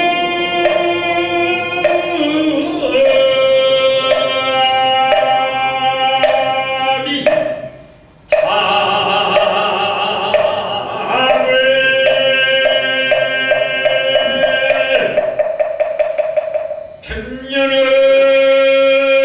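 Buddhist chant sung by a group in long held notes over a steady percussion beat of about two strikes a second. It comes in phrases of several seconds, with brief breaks between them.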